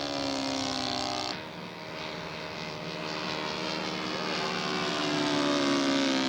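Radio-controlled scale model airplane engine running in flight, a steady buzzing note that slides slowly lower in pitch. About a second in it changes abruptly to a weaker, different engine note, which rises again near the end.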